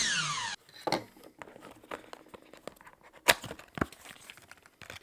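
A small knife slits the tape seal on a thin cardboard box: a short, loud zip falling in pitch at the start. Then quiet cardboard rustling and a couple of sharp clicks as the box flaps are opened.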